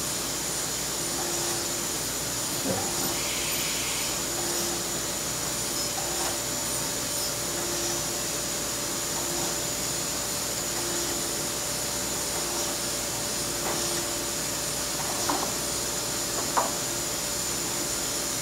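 Okamoto PSG-52DX surface grinder running: a steady whirring hiss with a mid-pitched tone that comes and goes every second or two. A few light knocks near the end.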